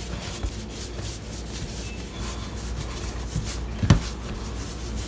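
Hands working portioned bread dough on a work surface: repeated rubbing and scraping, with a single sharp knock about four seconds in.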